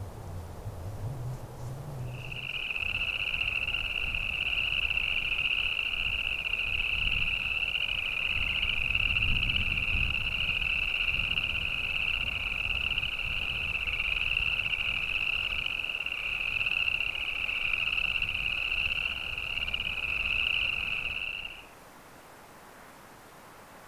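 A chorus of frogs trilling continuously in a marsh. It starts about two seconds in and cuts off abruptly near the end.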